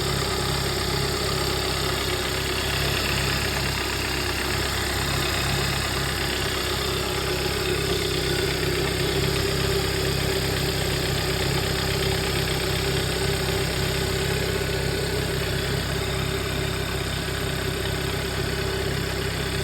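2011 Hyundai Sonata's engine running steadily, a continuous drone with a steady higher tone over it. This is the weird noise the owner cannot identify.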